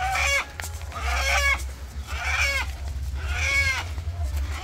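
Rooster held dangling by its legs squawking in distress: five harsh calls about a second apart, each dropping in pitch at its end.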